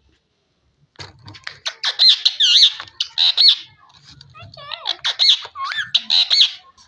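Ringneck parakeet chattering: rapid high squawks and whistled up-and-down glides in two spells, starting about a second in.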